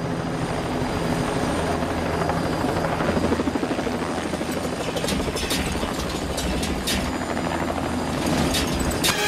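Helicopter engine and rotor running steadily with a pulsing chop, joined by several sharp clicks from about five seconds in.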